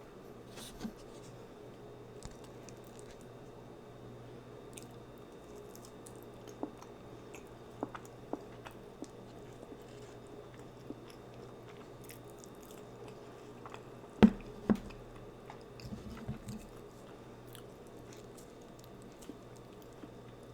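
Close-miked mouth sounds of a person chewing food, with scattered soft clicks and crunches. Two sharp, louder clicks come about two-thirds of the way through.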